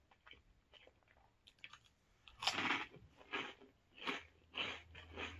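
Chewing a mouthful of crunchy Funyuns onion rings: faint mouth clicks at first, then five loud crunches from about two seconds in.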